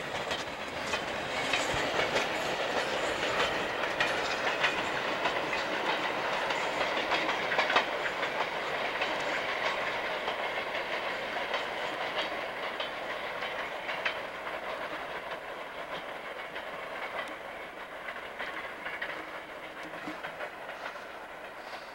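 Freight train's wheels clicking and rumbling over the rail joints as the tail of the train, a caboose, rolls away, the sound fading gradually.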